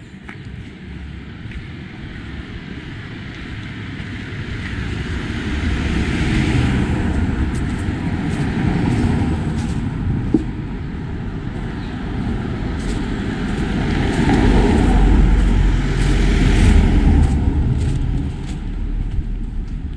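Motor vehicle traffic driving past close by, the sound swelling twice, a third of the way in and more loudly about three-quarters in, then fading near the end.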